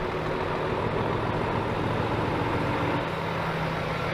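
Water spraying steadily while a muddy toy truck is washed, with a low steady hum underneath.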